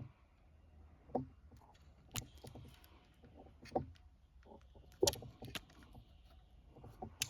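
Hand wire strippers at work on wire ends, with about half a dozen sharp clicks and snaps at irregular intervals as the insulation is cut and pulled off.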